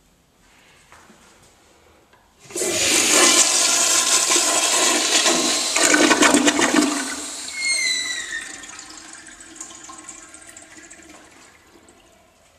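A sudden loud rush of water starting about two and a half seconds in. It runs for about four seconds, then slowly dies away, with a brief falling squeal as it begins to fade.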